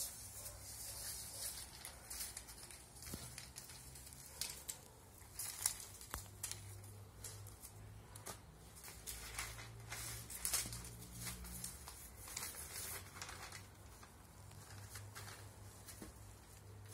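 Newspaper rustling and crinkling as it is handled, in short, irregular sharp rasps.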